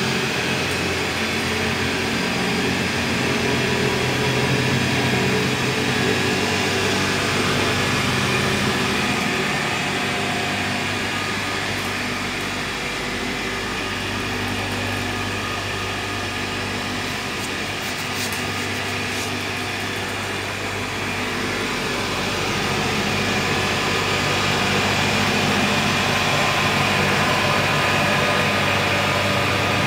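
Cable caterpillar haul-off running steadily, its drive motor humming with several steady low tones over a mechanical hiss. The sound eases a little midway and swells again near the end.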